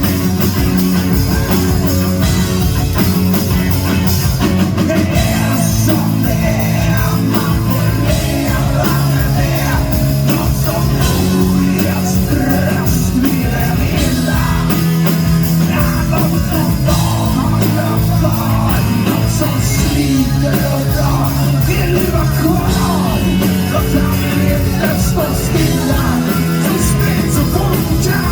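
Live rock band playing loud and steady, with electric guitars, drums and a male lead singer.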